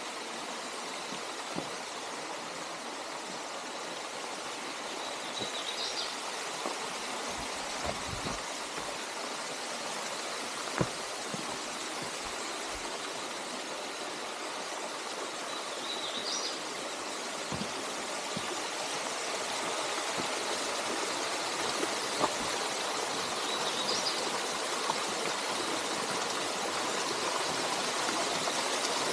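Waterfall's steady rush of falling water, gradually louder towards the end. A faint, short, high chirp recurs three times, and there are two sharp clicks.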